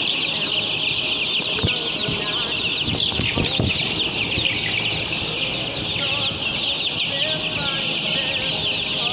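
A crowd of chicks peeping without pause: a dense chorus of many short, high, falling cheeps.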